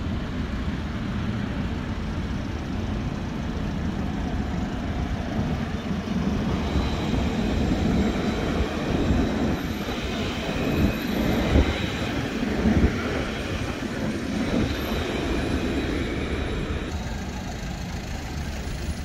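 Electric articulated tram running past on street track: a whine and wheel-on-rail rumble swell through the middle and fade, with two short clunks about two-thirds of the way through, over steady road traffic.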